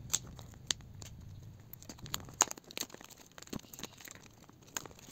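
Clear plastic shrink wrap on a cardboard phone box crinkling and tearing as it is cut open and peeled off, in irregular crackles with a few sharper clicks.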